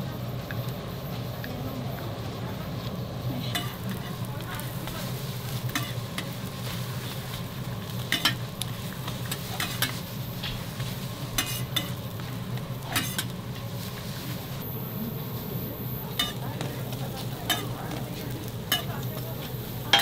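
Rice-cake pancakes sizzling in oil on a flat iron griddle, over a steady low hum. About ten sharp clinks come at irregular intervals as a metal spatula and round press tap and scrape the griddle.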